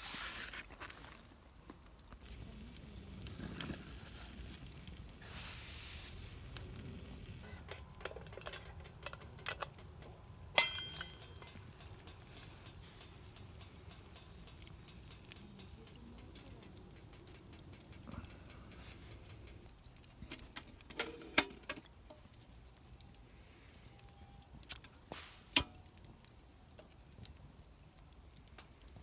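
Small wood fire crackling in a fire stand: scattered light ticks with a few sharper pops.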